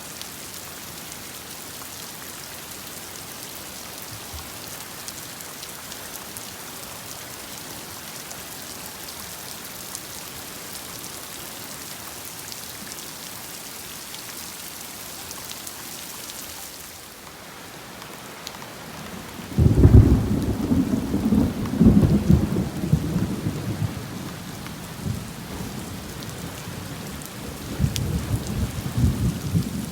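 Heavy rain falling with an even hiss. About two-thirds of the way in, thunder breaks out with a sudden loud, low rumble that goes on unevenly and swells again near the end.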